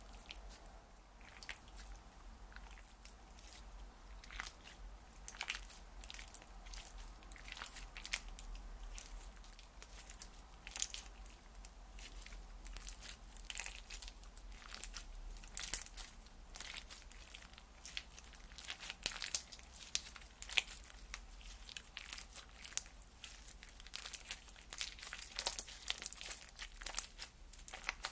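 Slime being squeezed and worked by hand, giving a dense, irregular run of crackles and crunchy pops, several a second, with no steady rhythm.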